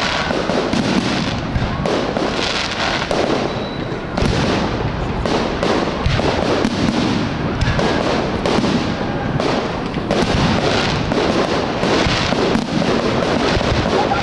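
Aerial firework shells bursting one after another in a dense, unbroken barrage of bangs.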